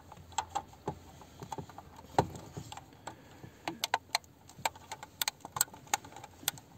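Plastic wiring-harness connectors being pushed into the back of a car stereo head unit, with irregular sharp clicks and knocks as the connectors, wires and metal stereo chassis are handled; the loudest knock comes about two seconds in.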